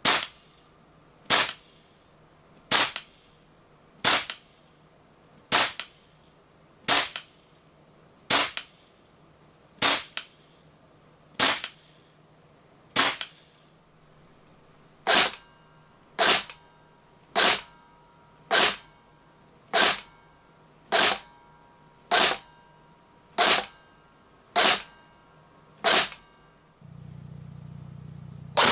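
Tokyo Marui airsoft rifles fired semi-automatic, about twenty sharp single shots with a pause midway, one roughly every second and a half. A steady low hum comes in near the end.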